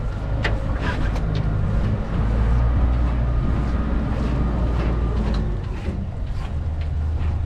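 Boat's motor running with a steady low hum, with a few light clicks about a second in.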